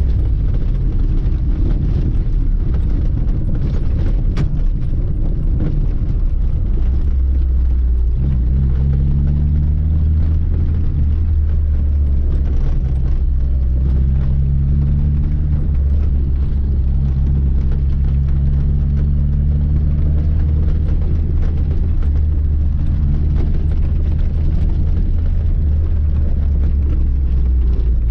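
Lada 2106's four-cylinder engine driving, a deep steady rumble. From about eight seconds in, the engine note comes through more clearly and rises and falls in long sweeps as the car pulls.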